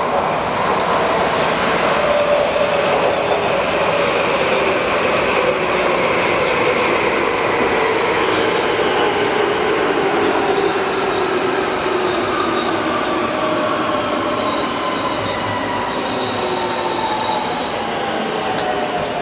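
Tokyu 8500 series train's Hitachi GTO-thyristor VVVF inverter and traction motors, heard from inside the motor car over steady wheel-on-rail rumble. The inverter whine glides slowly down in pitch in several tones as the train slows.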